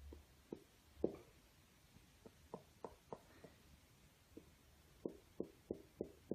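Faint fingertip taps on a tablet's touchscreen: about a dozen short, irregular taps, some coming in quick runs of three or four.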